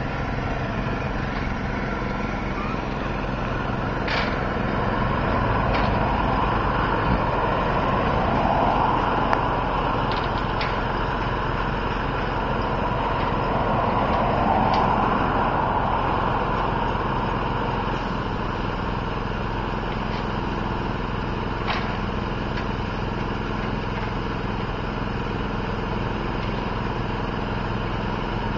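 Steady hum of a small engine running at constant speed, with passing traffic swelling up twice and a few light clicks.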